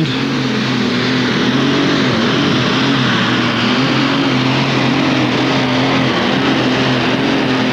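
Competition pulling tractor's engine running hard at full throttle under load, a steady deep note that wavers slightly in pitch, with a rushing noise over it.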